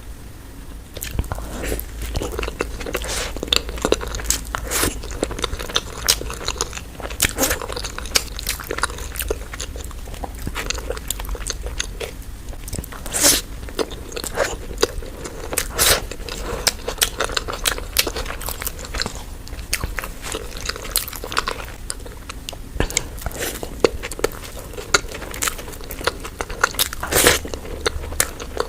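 Close-up eating sounds: crunching bites and chewing of crisp street food, with frequent irregular crackles and smacks.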